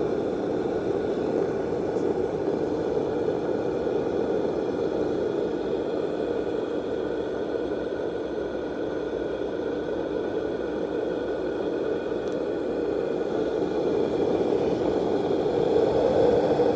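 Fan-based white noise machine running: a steady, even whooshing rush of air, with a faint constant hum underneath.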